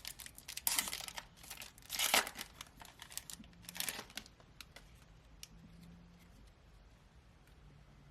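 A Topps Flagship basketball card pack's wrapper being torn open and crinkled, in several loud rips over the first four seconds, then a few faint ticks.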